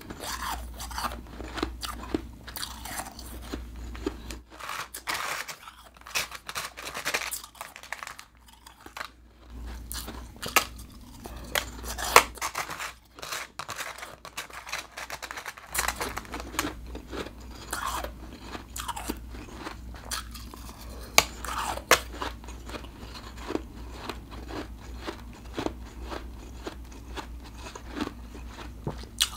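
Close-miked chewing of mouthfuls of refrozen blended ice: dense, brittle crunching and crackling, with a few sharper, louder crunches standing out in the middle.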